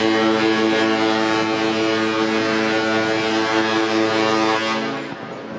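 A ship's horn sounding one long, deep, steady blast that stops about five seconds in.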